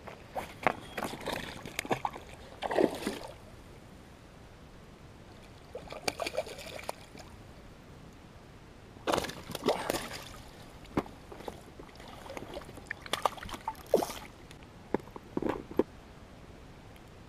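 Water splashing and sloshing in four short bouts as a small hooked largemouth bass thrashes at the surface beside a float tube and is brought to hand.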